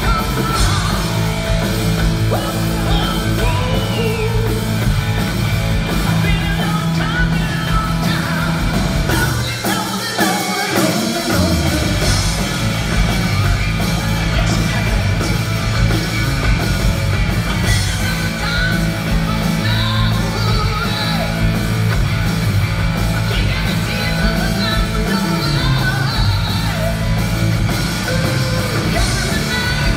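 Live hard-rock band playing loud through a PA: a male singer over electric guitar, bass and drums. The bass and drums drop out for about two seconds around 10 s in, leaving the voice and guitar, then the full band comes back in.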